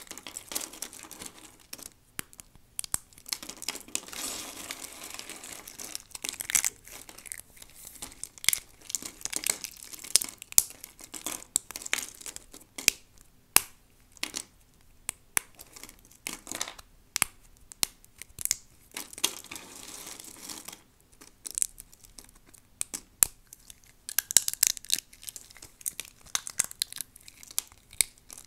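Crunchy soap being crushed and broken apart by hand: irregular sharp crackles and snaps, now and then thickening into spells of dense crackling.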